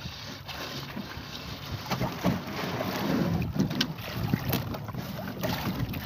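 Wind buffeting the microphone on a small outrigger fishing boat, with irregular rustling and knocks from fishing net and lines being handled at the gunwale.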